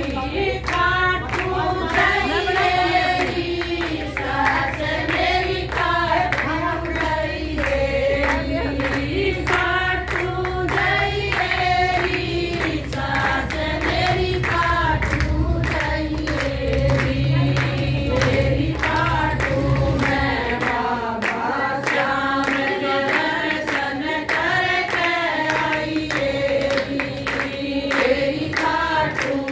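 A group of women singing a Hindu devotional bhajan in unison, keeping time with steady rhythmic hand clapping.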